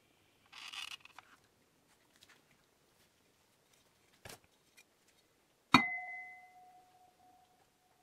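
An aluminium plate is set down on the bottom of a plastic bucket with a sharp metallic clank. It rings with a clear tone that fades over about two seconds. Earlier there is a brief scratchy rustle and a small click.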